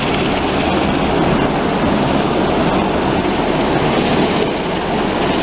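Coast Guard MH-60 Jayhawk helicopter hovering low overhead: a loud, steady rush of rotor and turbine noise.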